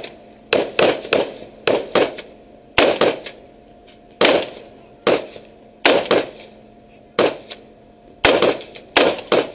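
Rifle gunfire: about fifteen single shots fired at an uneven pace, some in quick pairs, each cracking sharply with a short echo, over a faint steady hum.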